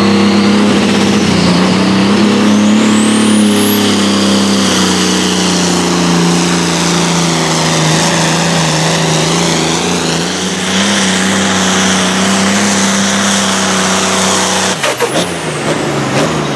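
Diesel engine of a pulling tractor held at full throttle under load as it drags a weight sled, running at a steady pitch, with a high whine that climbs steeply over the first few seconds. About two seconds before the end the engine note drops away abruptly, with a few sharp cracks.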